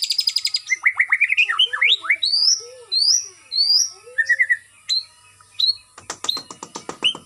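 White-rumped shama (murai batu) singing: a rapid trill of high notes, then a string of varied rising whistles and lower warbling notes. About six seconds in the song breaks into a fast run of clicking notes.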